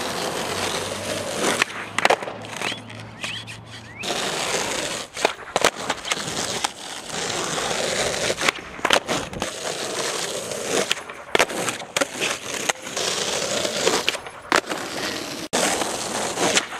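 Skateboard wheels rolling on rough asphalt with a steady grinding hum. Many sharp clacks of the board popping and landing during flip tricks are scattered throughout.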